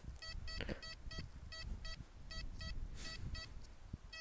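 XP Deus II metal detector giving short, high, repeated beeps, two to three a second, each time the search coil sweeps over a buried target, over a low rumble of wind on the microphone.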